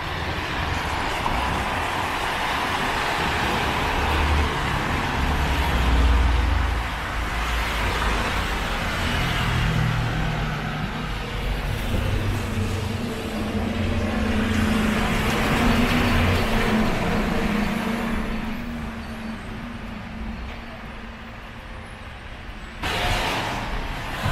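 Street traffic on wet pavement: cars pass one after another with tyre swish and engine hum. A heavier vehicle's engine drones in the middle, and a sudden hiss starts near the end.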